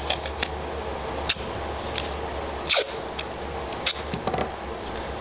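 Strips of tape being torn off and pressed down layer by layer onto a wooden jig block to build up shims: a scattering of short crackles and small rips, the longest about two and a half seconds in.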